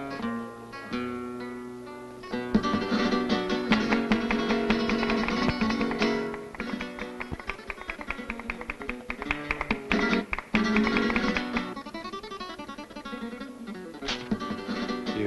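Flamenco music played on acoustic guitar, with quick strummed and plucked passages and sharp strokes, growing louder about two and a half seconds in.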